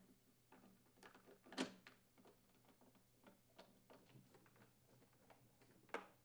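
Faint clicks and taps of a screwdriver turning screws into a leaf blower's plastic housing, with handling knocks; the loudest is a sharp knock about a second and a half in, and another comes near the end.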